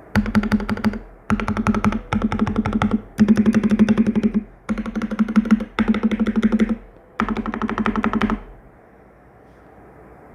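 Fast typing on a Keychron K6 mechanical keyboard with lubed Gateron Brown switches, in an aluminium case on an aluminium plate. The keystrokes come in about seven quick bursts of roughly a second each, with short gaps between them, and stop about two seconds before the end.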